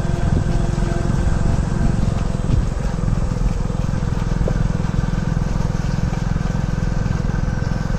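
A motorcycle engine running steadily at low speed, a continuous low rumble without changes in pitch.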